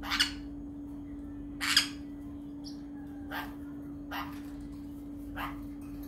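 Parrot squawking: two loud, harsh calls about a second and a half apart, then three shorter, fainter ones.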